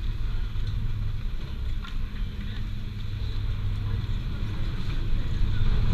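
Chairlift terminal machinery running at the loading station: a steady low hum and rumble.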